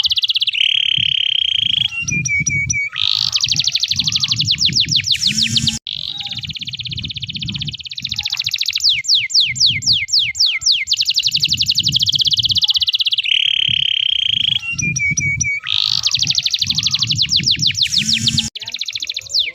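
Domestic canary singing a long, unbroken song of rapid trills and fast repeated notes, the same run of phrases coming round again partway through. A low pulsing rumble runs underneath.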